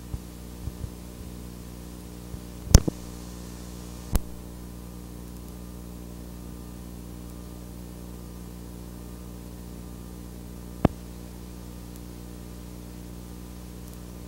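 Steady electrical mains hum with a faint hiss, broken by three sharp clicks, about three, four and eleven seconds in; the first click is the loudest.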